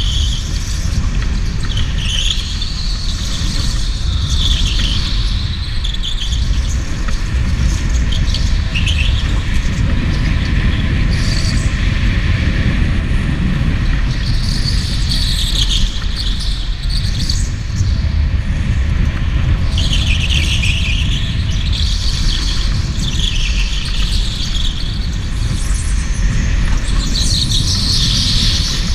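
Electric go-kart's tyres squealing in repeated short bursts as it slides through corners, over a steady low rumble of the kart at speed.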